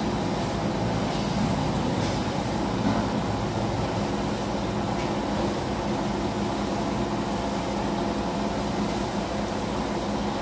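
Truck-mounted mobile crane's diesel engine idling steadily.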